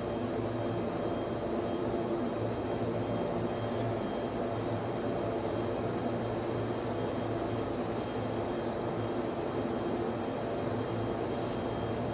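Server room equipment and network switch cooling fans running with a steady whirring drone and a faint high whine.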